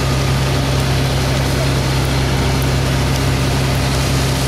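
Fire engine's diesel running steadily with a constant low hum, driving the pump that feeds the hose lines.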